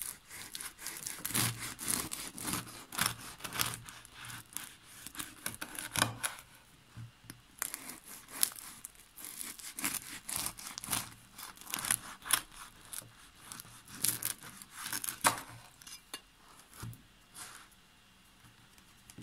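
Knife sawing through the crisp crust of a homemade bread loaf: a dense run of crackling and crunching, easing off after about fifteen seconds as the slices come free.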